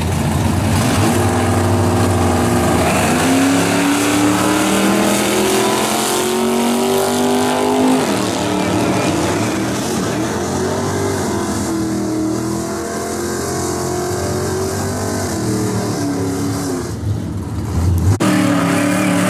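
Two vintage cars launching off a drag strip start line at full throttle, their engines climbing in pitch through the gears and then carrying on more distantly down the quarter mile. Near the end, after a cut, a different engine runs steadily close by.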